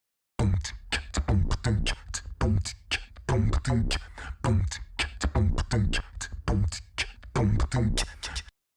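Short intro music: a rhythmic beat of punchy hits with heavy bass, resembling beatboxed vocal percussion. It stops abruptly near the end.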